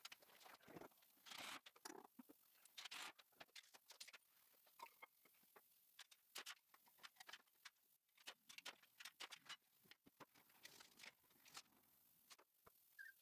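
Faint, irregular clicks and taps over near silence.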